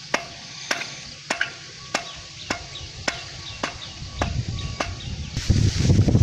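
Sharp knocks, each with a short ring, repeated evenly a little under two times a second, like a tool striking something hard. About five and a half seconds in, a loud low rumble rises and takes over.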